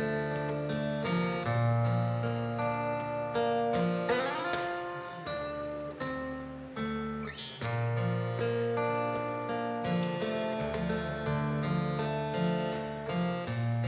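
Acoustic guitar playing an instrumental intro, with plucked notes over bass notes that change every second or two. A short sliding note comes about four seconds in.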